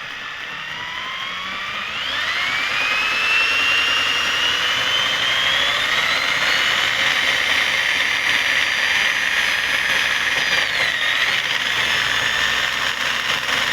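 Electric drill spinning a homemade bobbin winder as it winds a bobbin: a motor whine that climbs in pitch over the first few seconds as the drill speeds up, then runs steady at high speed, dipping briefly about three-quarters of the way through.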